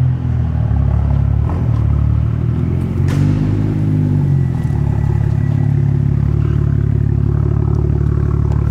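BMW 435i's turbocharged straight-six running through an exhaust with a catless downpipe: a steady low engine note as the car pulls out, rising and falling briefly about three seconds in, then settling back to a low idle.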